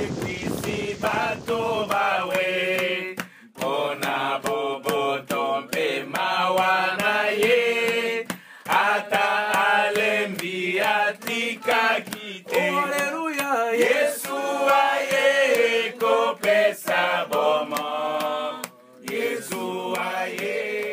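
Chant-like singing: voices carrying a melody in phrases, with brief breaks between them. A low rushing noise lies under the first couple of seconds and then fades out.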